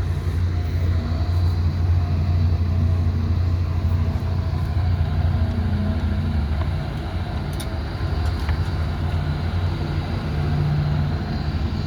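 Diesel engine of heavy road-construction machinery running steadily, a deep, continuous low drone.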